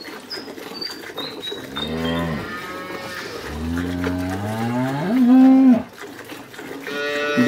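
A cow mooing: a short low moo about two seconds in, then a long moo that rises in pitch and is loudest near its end.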